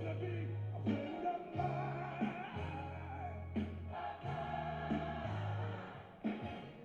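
Gospel song: voices singing over deep bass notes and drum hits.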